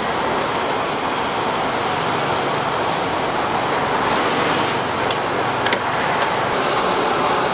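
Steady traffic noise from a city street, with a brief high whine about four seconds in and a few light clicks a little later.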